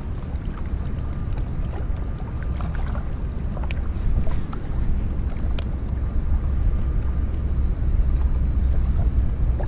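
Wind rumbling on the microphone, with a thin steady high whine throughout and a couple of sharp clicks around the middle.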